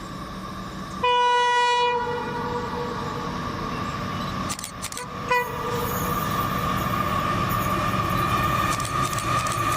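Aurizon freight train's diesel locomotive sounding its horn: a long blast about a second in and a short blast about four seconds later, over the steady rumble of the passing train, which grows louder toward the end.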